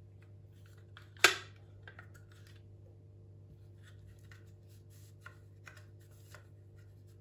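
Hard plastic parts of a Dyson cordless vacuum attachment being handled and wiped with a cloth: one sharp plastic click about a second in, then faint scattered rubbing and light ticks.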